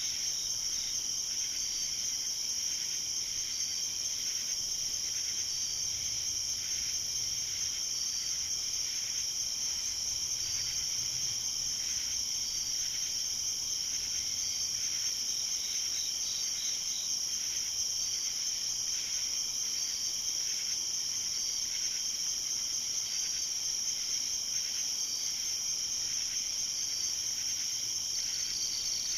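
Night chorus of crickets and other insects: a steady high-pitched trill, with a softer chirp repeating about once a second.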